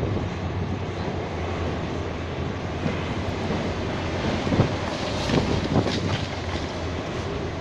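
Hitachi ZAXIS 870 high-reach demolition excavator running steadily, with a few crashes of concrete debris falling from the building about four and a half to six seconds in.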